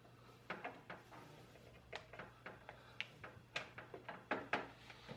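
Faint, irregular clicks and taps of a power cable's connector being worked into the graphics card's power socket inside a PC case, the loudest in the second half.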